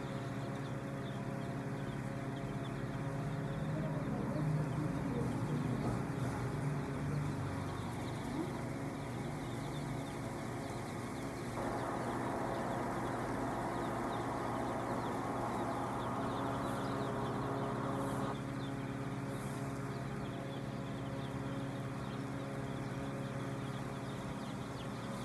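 A large flock of young chicks peeping continuously, over a steady low hum.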